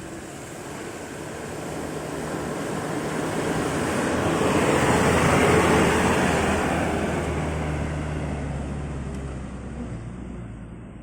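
A loaded Hino 300 diesel dump truck driving past, its engine drone and road noise swelling to a peak about halfway through and then fading.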